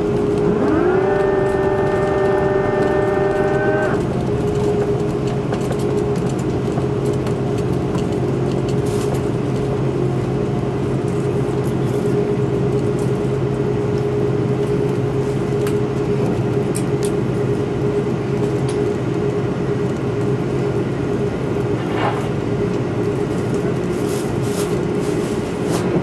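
Jet airliner's engines heard from inside the cabin during the landing rollout. About a second in they spool up in a rising whine, typical of reverse thrust. The whine holds for a few seconds and then drops away, leaving a steady cabin drone as the aircraft slows on the runway.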